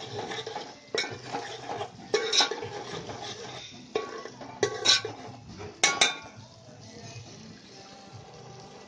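Metal spoon clinking and scraping against a steel pot as dal is spooned into a thick masala and stirred, with sharp clinks about a second in, around two, four to five and six seconds in, then quieter stirring.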